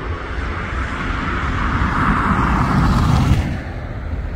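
Jet airliner passing close, its engine roar building to a peak about three seconds in and then falling away, over wind rumble on the microphone.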